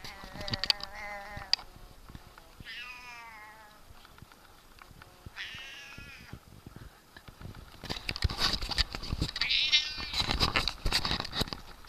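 Siamese cat yowling: four long, drawn-out meows a couple of seconds apart, their pitch bending as they go. In the last few seconds a run of sharp clicks and rustling sounds alongside the final call.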